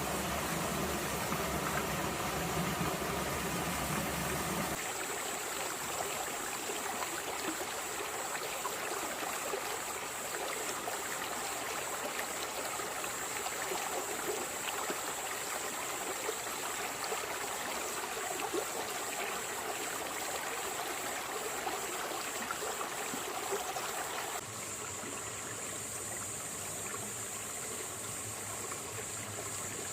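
Small stream running over moss-covered stones and rocks, a steady rush of flowing water. The sound shifts abruptly twice, about five seconds in and again near the end, as the water sound changes character.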